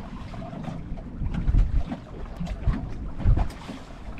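Wind blowing across the microphone on a small boat, with irregular low thumps and knocks.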